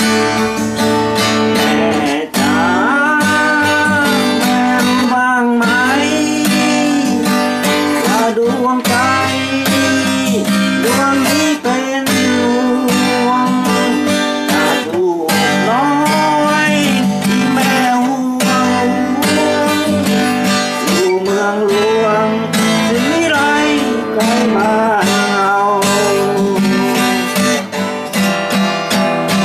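Cutaway acoustic guitar strummed by hand in a steady, busy rhythm of chords, with a melody line that slides and wavers above the strumming.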